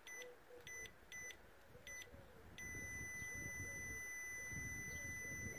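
Digital multimeter's continuity beeper: several short beeps as the probe touches pins one after another, then one long steady beep of about three seconds while the meter holds a reading of about 12.8 ohms. The beep signals continuity from the O2-sensor heater wire to an ECU connector pin.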